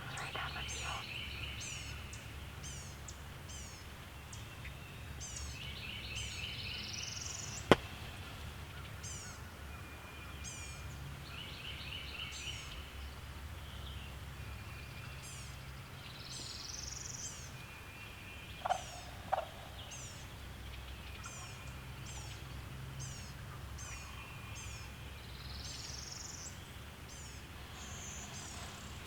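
Woodland birdsong: thin, high, falling chirps repeating about once a second, with other birds' song phrases over them, some ending in a rising swoop. A sharp click about eight seconds in is the loudest sound, two short calls come close together a little past halfway, and a steady low rumble lies beneath.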